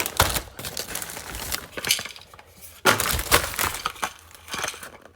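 Packaging being handled and opened: irregular crinkling and crackling with sharp clicks and clinks, heaviest in the first two seconds and again about three seconds in.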